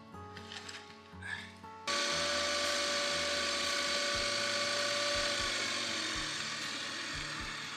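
Background music, joined about two seconds in by a loud, steady power tool that starts abruptly and runs with a high, steady whine.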